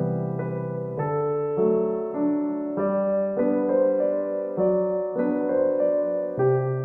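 Background music: a soft electric-piano melody over a bass line, with a new note or chord roughly every half second.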